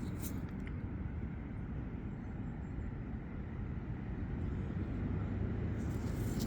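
Steady low outdoor background rumble, with a few faint ticks in the first second.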